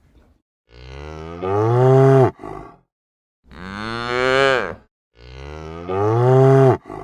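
Cow mooing three times, each moo a low drawn-out call of one to two seconds, with short gaps of silence between them.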